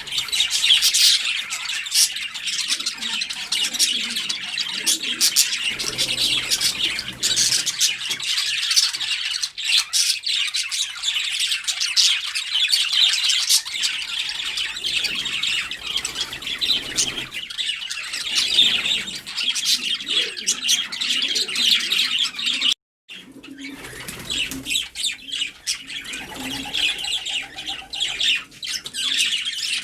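Many birds chirping and squawking at once in a dense, continuous chatter, breaking off for a moment about 23 seconds in before resuming.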